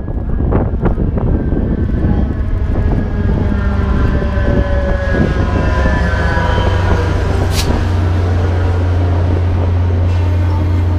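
VIA Rail F40PH-2 diesel locomotive, with its EMD 16-cylinder two-stroke engine, passing close by as it pulls into the station, followed by its passenger coaches rolling along the rails. The steady low drone of the engine and wheels grows stronger once the locomotive is alongside, with one sharp metallic click about seven and a half seconds in. Wind buffets the microphone at the start.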